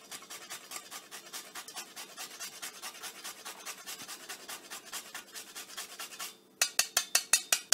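Whole nutmeg being grated on a long rasp grater, a steady run of short scraping strokes at about five a second. After a brief pause near the end, the strokes come louder and faster.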